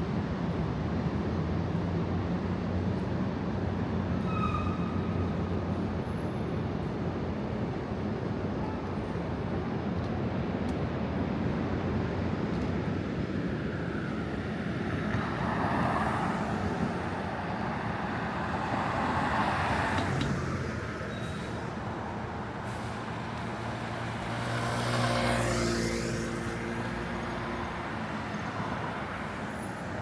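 City street traffic: a steady low engine hum with vehicles driving past, the loudest passes about halfway through and again near the end.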